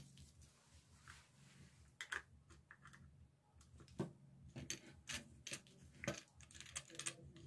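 Faint, scattered clicks and taps of hands handling a plastic switch board with its wiring, a few sharper knocks among them.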